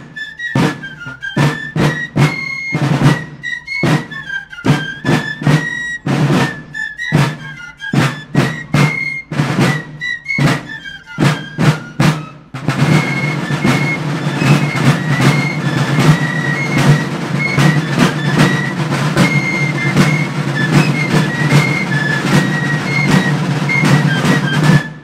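Traditional Occitan festival music: drum strikes under a high wind-instrument melody. About halfway through the drumming turns into a fast, continuous roll and the music fills out, then it stops at the very end.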